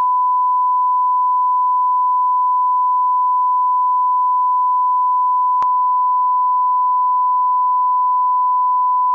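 A 1 kHz line-up reference tone on a broadcast master's leader: one steady, unbroken pure tone, with a faint click about five and a half seconds in.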